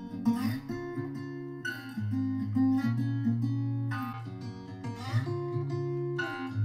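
Strummed acoustic guitar with a strong bass line, the instrumental opening of a pop song, played back through 2.1 computer speakers with a subwoofer set to half bass. It plays first through the Sony SRS-DB500 set, then partway through switches to the Logitech Z-2300 set.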